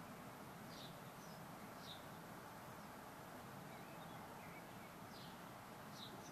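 A small bird chirping faintly: a few short, high, slightly falling notes over a steady background hiss.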